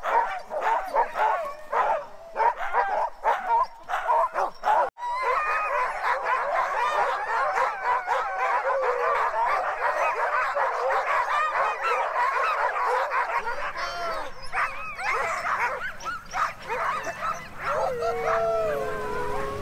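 A team of harnessed sled dogs barking and yipping in quick bursts, then breaking about five seconds in into a dense chorus of howls and yelps. This is the excited noise of sled dogs hooked to the gangline and eager to run.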